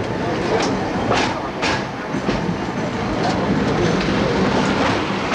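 Great Orme Tramway cable-hauled tramcar climbing its street-running section, heard from on board: a steady rumble and rattle from the car on the rails, with irregular sharp clacks.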